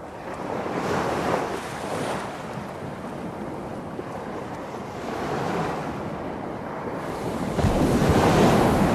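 Ocean surf washing onto a shore, swelling and easing in several waves, the loudest near the end.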